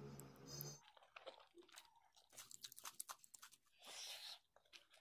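Faint close-up eating sounds of a person chewing a mouthful of curry and rice taken by hand: many quick wet clicks and smacks, with a longer sucking sound about four seconds in.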